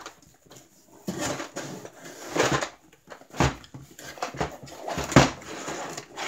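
Cardboard shipping box rustling and scraping as its flaps are handled and the box is turned over to slide out a plastic drawer case, with two sharp knocks about three and a half and five seconds in.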